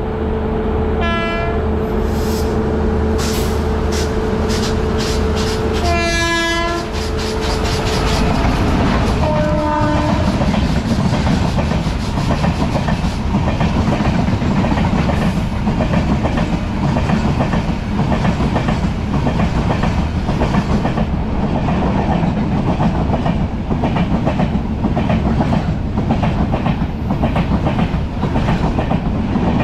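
Express train's electric locomotive sounding its horn as it runs through the station at speed: a short blast, a longer blast about six seconds in, and a third, lower-pitched one about ten seconds in as it goes by. The coaches then rush past with a steady rumble and rapid clickety-clack of wheels over rail joints.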